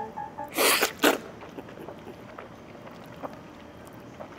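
Two short noisy bursts close together a little under a second in, from jjajangmyeon noodles being slurped or eaten, then a quiet stretch with a few faint clicks of utensils.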